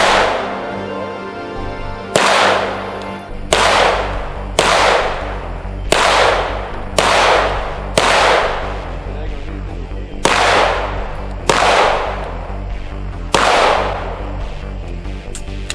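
Gunshots on a firing range: about a dozen single shots at uneven intervals of one to two seconds, each followed by a long fading echo.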